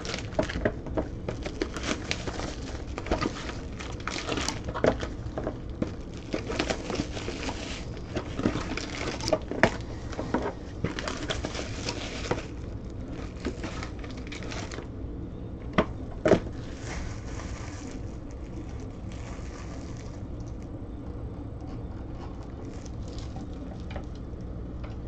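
Clear plastic wrapping crinkling and a cardboard trading-card box being handled and pulled open, a dense run of crackles and clicks that thins out after about twelve seconds. Two sharp clicks come near the middle, then mostly a steady low hum remains.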